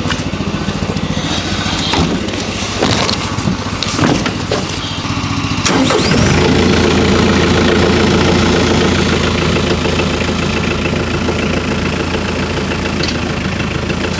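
Compact tractor engine starting from cold: it cranks, catches about six seconds in, then settles into a steady idle. The owner calls it not a bad cold start.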